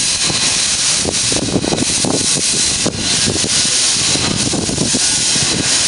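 Steam locomotive and its tender rolling slowly past: a loud, steady hiss of steam over a low, uneven rumble of the running gear.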